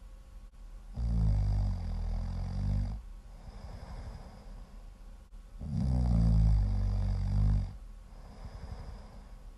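Loud, low-pitched snoring: two long snores about four and a half seconds apart, each lasting about two seconds, with quieter breathing between them.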